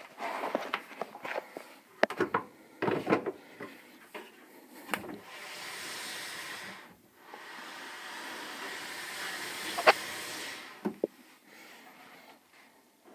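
Hotpoint Aquarius TVFS 83 tumble dryer: a run of clicks and knocks, then a steady rush of air for about five seconds, broken briefly about halfway through, with a sharp click near the end of it and a few more knocks after.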